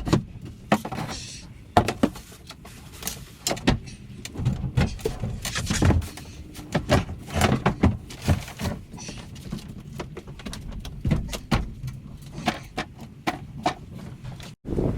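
Irregular knocks, clunks and rattles of wooden and metal parts and tools being handled and set down during cabinet work.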